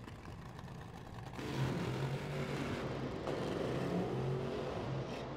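Injected nitro-burning Top Alcohol Dragster engine revving through a burnout, the rear slicks spinning in smoke. The engine note comes up about a second and a half in and holds, wavering, before easing near the end.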